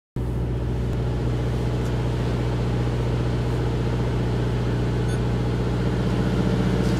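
Steady low mechanical hum of a tour bus's running machinery, an even drone that does not change.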